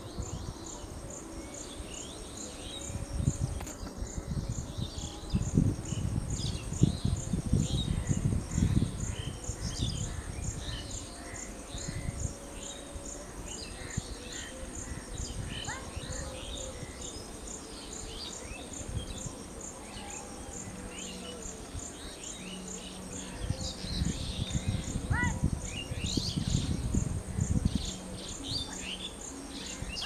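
Outdoor ambience: a high-pitched insect call pulsing steadily, a bit under two pulses a second, with scattered short bird chirps. Two spells of low rumbling noise come in, one a few seconds in and one near the end.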